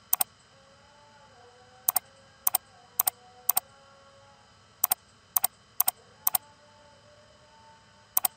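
A computer mouse clicking about ten times at uneven intervals. Each click is a quick press-and-release pair, as images are paged through in a photo viewer.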